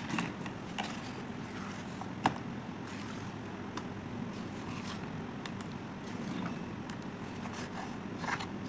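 Thick wet paste of Holi colour powder and sand being squeezed and scraped by hand in a metal tray: soft scraping with scattered clicks, one sharp click a little over two seconds in, over steady background noise.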